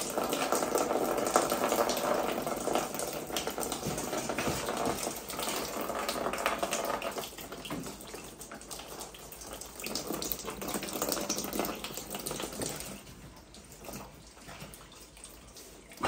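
Heating-system water running out of a loosened pipe fitting under a Buderus Logomax condensing combi boiler as the system is drained, flowing because air is getting in. The flow is steady at first, weakens about halfway through and grows fainter near the end.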